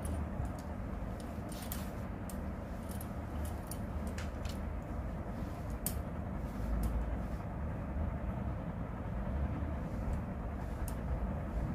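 Steady low background rumble, with scattered faint clicks and ticks.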